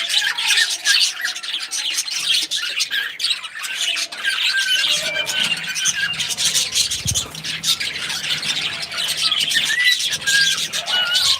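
Small pet parrots chattering: dense, rapid chirps and squawks with short whistled notes, overlapping throughout.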